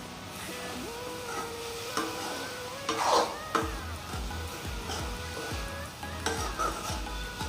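A spatula stirring and scraping cluster beans around a pan as they sizzle in oil, with irregular strokes and one louder scrape about three seconds in.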